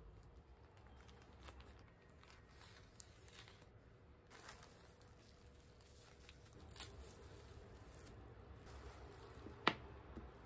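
Faint rustling and crinkling of a paper mailer and plastic bubble wrap being handled and pulled off a paperback book, with one sharp click near the end.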